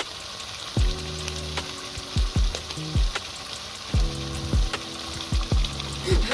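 Food frying and sizzling in a pan, a steady hiss, under background music with deep kick drums that drop in pitch and held bass notes.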